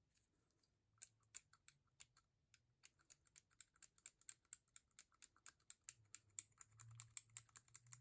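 Faint, quick, irregular clicking of a brass Yale padlock's shackle and latch mechanism as it is worked back and forth while soaked in ATF and mineral oil to free it up. The clicking starts about a second in.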